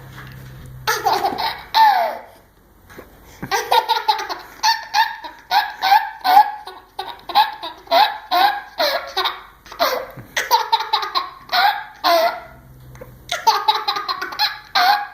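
A baby or small child laughing hard in repeated high-pitched bursts while having the hiccups.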